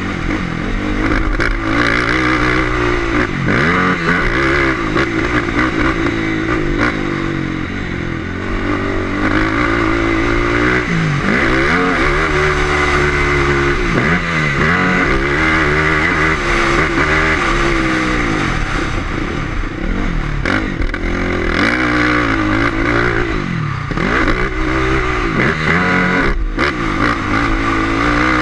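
Off-road racing engine under hard throttle, its pitch climbing and dropping again and again as the rider accelerates, shifts and backs off around the track.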